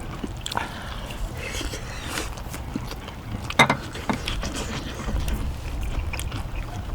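Clicks and knocks of eating utensils during a meal, with one louder clack about three and a half seconds in, over a low steady rumble.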